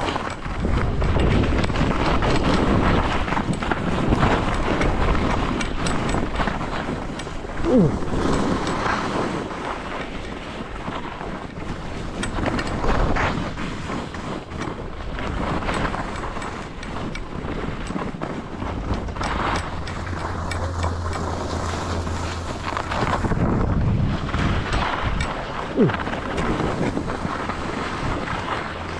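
Wind rushing over the microphone and skis scraping and hissing over packed snow during a downhill run. Two short falling squeaks stand out, about eight seconds in and near the end.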